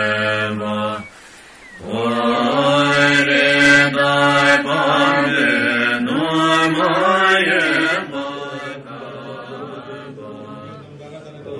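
Buddhist mantra chanting in low voices, with long drawn-out notes. The chant breaks off briefly about a second in, resumes, and is quieter for the last few seconds.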